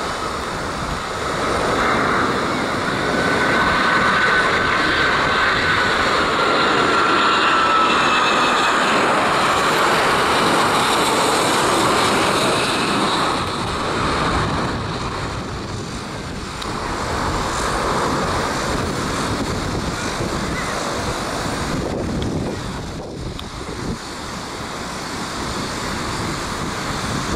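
Twin-engine Boeing 737 jet airliners on final approach, engines running loud overhead, with a thin whine that slides down in pitch as one passes. Wind buffets the microphone.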